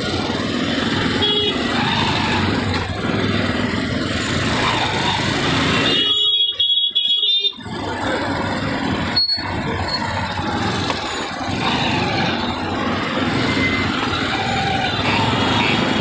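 Steady road-traffic noise with short high-pitched beeps, likely vehicle horns or alarms, about a second in and again as a repeating series near the end. The sound cuts out for a moment about six seconds in, and a sharp click follows a few seconds later.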